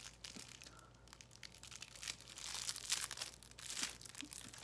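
A clear plastic Twizzlers candy wrapper crinkling as it is handled, in several soft crackles, the strongest about three seconds in.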